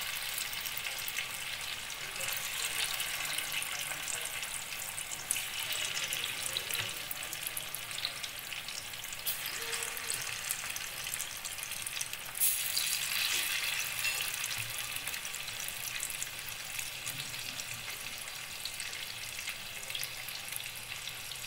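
Batter-coated chicken pieces sizzling steadily in hot oil in a steel kadhai over a medium gas flame, with fine crackles throughout and a brief louder stretch about twelve seconds in.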